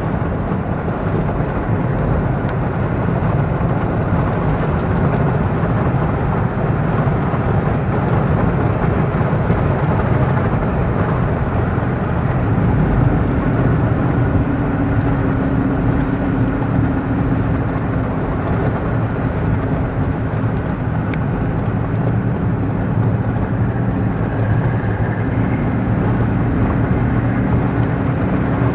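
Engine and road noise of a car driving down a country road, a steady drone with no let-up. A steadier hum comes into the engine note about twelve seconds in and again near the end.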